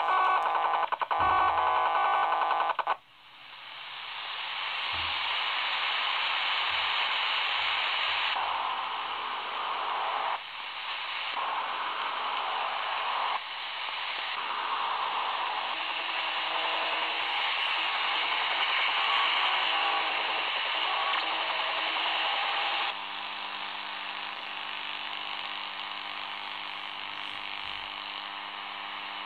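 Shortwave AM reception through a smartphone software-defined-radio app while tuning across the band. A buzzing tone with many overtones cuts off about three seconds in. Radio static then swells up and holds, stepping in level as the frequency changes. About 23 seconds in, a steady humming tone with overtones takes over under quieter static.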